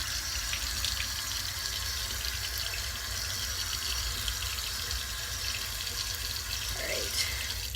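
Bathroom sink tap running steadily into the basin, shut off suddenly near the end.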